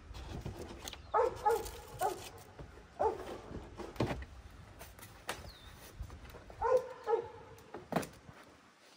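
A dog barking: several short barks in groups, about a second in, around three seconds, and a pair near seven seconds. A few sharp knocks on the metal roof and gutter fall between them.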